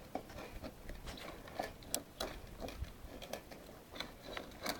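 A litter of five-week-old Irish setter puppies eating from food bowls: irregular small clicks and ticks of lapping and chewing, with one sharper click about two seconds in.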